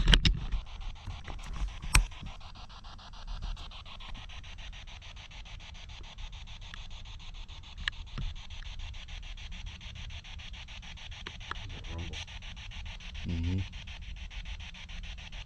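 SP7 spirit box sweeping through radio stations: a continuous rapidly chopped static hiss. A few sharp clicks come in the first two seconds, and there are two brief voice-like fragments near the end.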